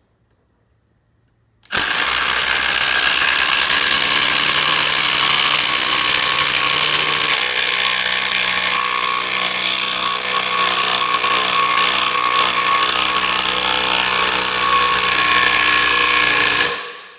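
Two Milwaukee M18 Fuel cordless impact drivers (Gen 2 and Gen 3) hammering together as they drive half-inch by four-inch lag bolts into a pressure-treated 4x4 without pilot holes. The noise starts about two seconds in, runs steadily for about fifteen seconds and cuts off near the end.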